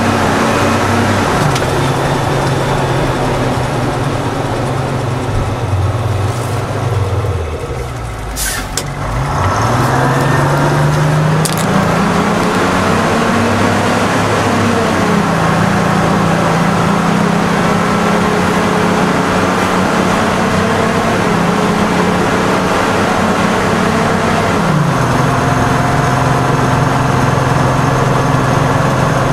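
Detroit Diesel 6-71 two-stroke diesel in a Seagrave fire engine, heard from inside the cab while driving: the engine pitch falls as the truck eases off, with two brief clicks, then climbs under acceleration and steps down about 25 seconds in, as the automatic transmission shifts up.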